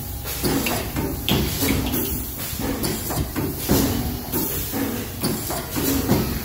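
Fully automatic heat transfer label machine running: its pneumatic press cycles with short air hisses and clacks, repeating a little faster than once a second, over a steady low machine hum.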